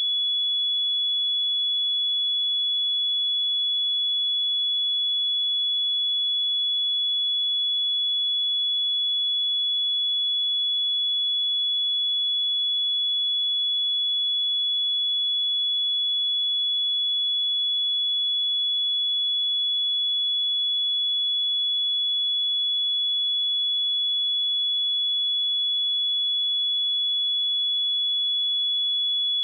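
A pure 3397 Hz sine-wave test tone, one steady high-pitched beep held at constant level, used for checking speakers and headphones.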